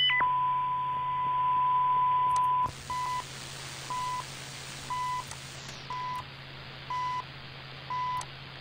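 Shortwave receiver tuned to the CHU Canada time signal on 3330 kHz. A steady whistle is heard first, then stops about two and a half seconds in as the background static widens. After that come the station's second ticks: short 1 kHz beeps, one each second, over static.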